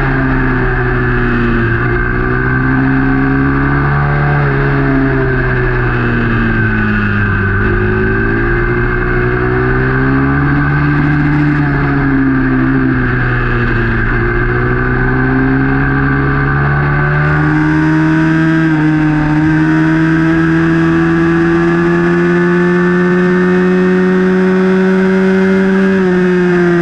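Small youth racing motorcycle's engine heard onboard at race speed, its pitch dropping as it slows for corners and climbing again on the throttle out of them. In the second half it climbs steadily for several seconds down a straight, then drops near the end as it slows for the next corner.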